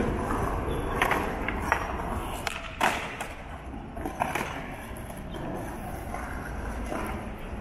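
Bicycle rolling over paving, with a steady low rumble and a few sharp knocks and rattles as it goes over bumps and joints, loudest about 3 s in.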